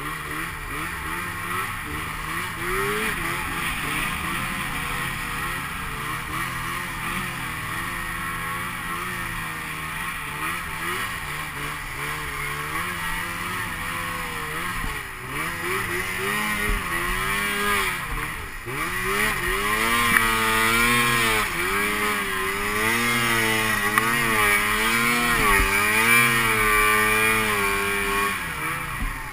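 Snowmobile engine under throttle as the sled climbs a snowy slope. In the second half it gets louder and its pitch rises and falls again and again as the throttle is worked.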